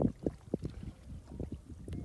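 Shallow muddy water sloshing in short, irregular low splashes around a person wading chest-deep and groping along the bottom with his hands.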